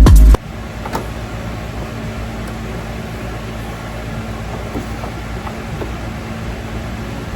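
Electronic music cuts off about half a second in, leaving a steady mechanical hum with an even hiss.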